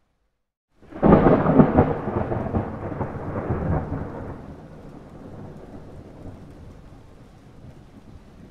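A thunderclap: a sudden loud crack about a second in, breaking into rolling crackles and then a long fading rumble, with faint rain hiss underneath.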